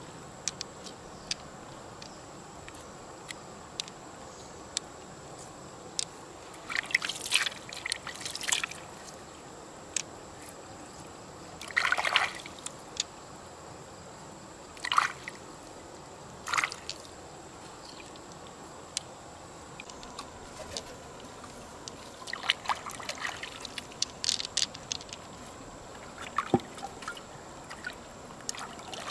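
Wet freshwater pearls clicking against each other as they are picked out of mud and gathered in a cupped hand, in scattered single ticks and a handful of short clattering, trickling clusters. Underneath is the steady hiss of the river.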